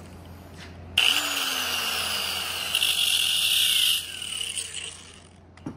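Electric angle grinder switched on about a second in, grinding the end of a piston ring for about three seconds to open the ring gap. It is then switched off and winds down. A short click comes near the end.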